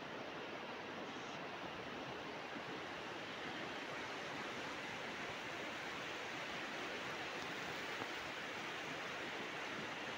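Swollen, muddy river in flood rushing past the bank: a steady, even rush of fast-flowing water.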